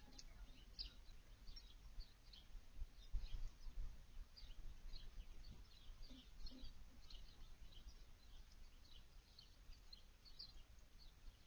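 Small backyard songbirds giving many faint, short chirps, several a second and scattered throughout. A few low thumps come about three seconds in.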